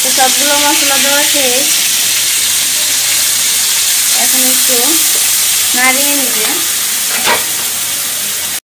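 Spice pastes, powdered spices and green chillies dropped into hot oil with small shrimp in a metal kadai, sizzling loudly as a spatula stirs and scrapes the pan.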